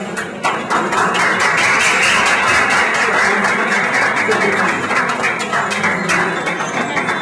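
Audience applauding: many hands clapping in a dense, even patter that breaks out about half a second in and keeps going for several seconds.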